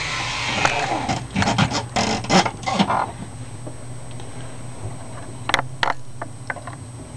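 Scraping, rustling and clicking of hands handling small gun parts and tools for about three seconds, then quieter with a few sharp small clicks a little after the middle.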